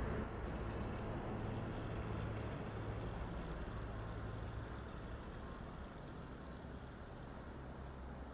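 Steady low rumble of outdoor background noise with a low hum, slowly fading.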